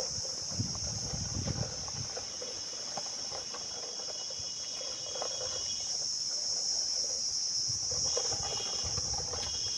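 A steady, high-pitched chorus of crickets chirping continuously, with faint scattered knocks and scraping underneath.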